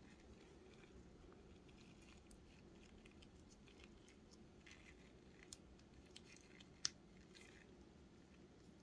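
Faint clicks and rubbing of the small plastic pieces of a vintage six-piece keychain puzzle handled in gloved fingers, with one sharper click about two-thirds of the way through as the pieces are fitted together.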